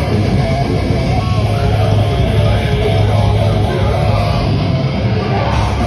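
A punk band playing live and loud: an electric guitar riff of repeated notes over heavy bass.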